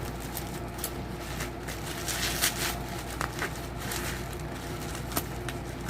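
Packaging being handled and opened: scattered crinkles and clicks, with a denser rustle about two to three seconds in, over a steady low hum.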